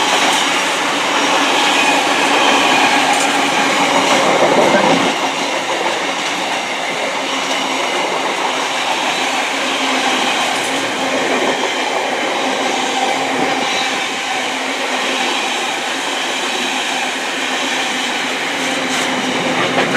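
A long freight train of intermodal container wagons, hauled by a Class 90 electric locomotive, rolling steadily past with its wheels clattering over the track, a little louder a few seconds in.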